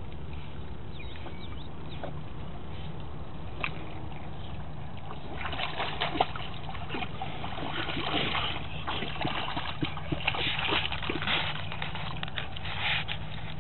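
A dog swimming with a stick, then splashing hard in the shallows from about five seconds in as it paddles up to a rocky bank and scrambles out, over a steady low rumble.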